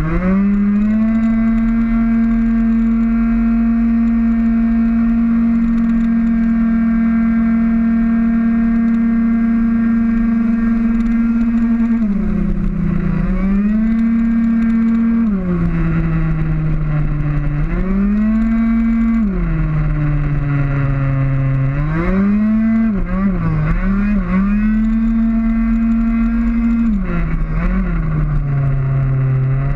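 Two-stroke racing scooter engine at full throttle, running at a steady high pitch for about twelve seconds. It then drops and climbs back up several times as the throttle is closed and reopened through the corners.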